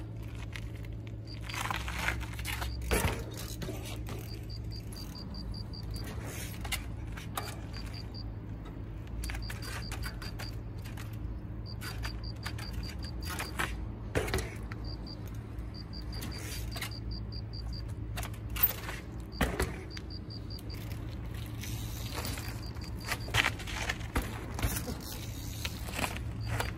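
Yeti mountain bike being ridden in trials practice: repeated short runs of rapid ticking from the rear freehub as the pedals are ratcheted, with occasional knocks and scrapes from the tyres and frame as the bike hops and lands.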